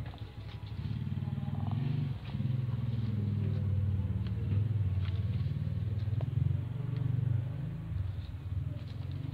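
A low, uneven rumble that swells about a second in and eases off near the end, with a few faint clicks over it.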